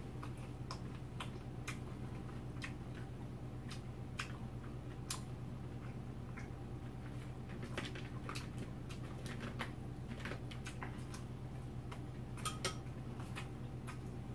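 Chopsticks clicking and tapping against bowls and dishes at a meal: scattered, irregular light clicks, a few louder ones near the end, over a steady low hum.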